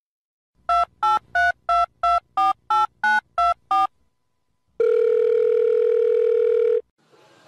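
Touch-tone telephone keypad beeps: about eleven quick key presses in a row, like a number being dialled, then a steady phone tone held for about two seconds.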